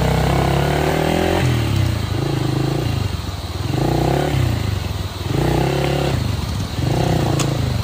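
Off-road motorcycle engine revving up and down under the throttle, its pitch surging and dropping about five times. This fits riding a steep, rough climb.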